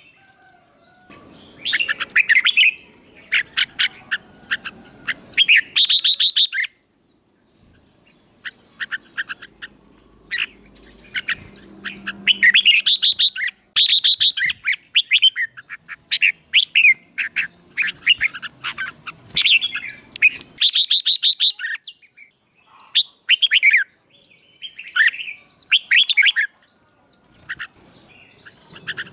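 A songbird singing in bursts of fast, repeated chattering and trilling notes, with short pauses between phrases: competitive "fighting" song of the kind used to stir a young caged bird into singing back.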